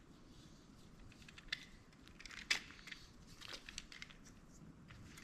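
Light clicks and scraping of a screwdriver and small plastic and metal parts being handled while a dome security camera is taken apart, with the sharpest click about two and a half seconds in.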